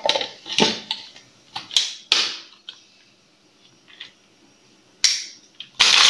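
Plastic lid fitted onto an electric spice grinder's jar and the jar settled on its base: a series of sharp knocks and clatter. Near the end the grinder switches on suddenly, a loud even rush as it grinds a load of whole spices.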